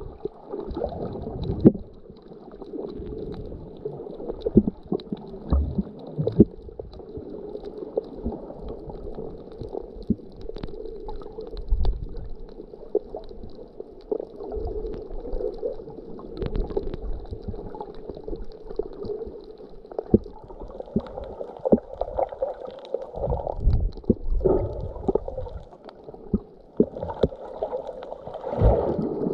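Muffled underwater water noise heard with the microphone below the surface: a low, uneven gurgling rumble of moving water, with scattered short clicks and knocks throughout.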